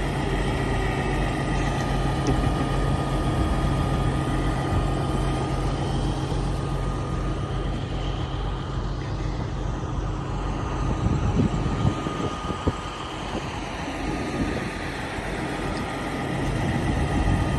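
Diesel heavy-equipment engine idling steadily, with a few light clanks about two-thirds of the way through.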